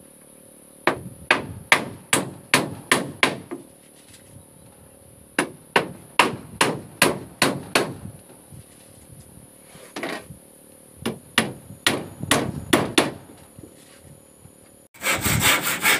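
Claw hammer driving nails into wooden floor planks: three runs of quick strikes, about three a second, with short pauses between. About a second before the end it gives way abruptly to a handsaw cutting through a board.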